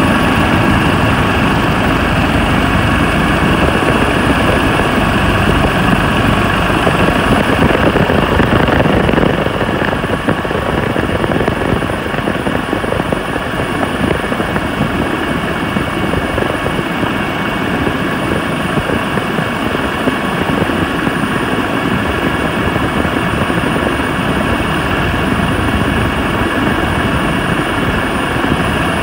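Helicopter engine and rotor running steadily, heard from on board: a dense, constant rumble with a steady high whine over it, a little quieter from about nine seconds in.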